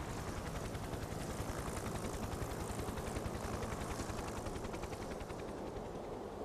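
Helicopter rotors chopping in a fast, even beat, growing slightly softer near the end.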